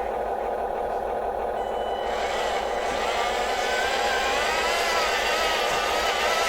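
Small electric motors of a radio-controlled construction machine running with a steady whine. From about two seconds in, a higher whine joins, wavering up and down in pitch as the motors take varying load.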